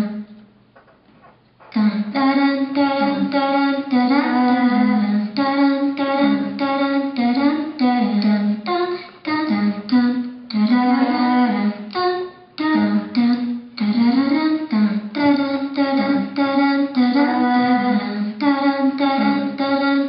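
Music from the ballet's original score: a wordless voice sings a melody in short, separate notes, some gliding in pitch. It comes in about two seconds in, after a brief quiet stretch.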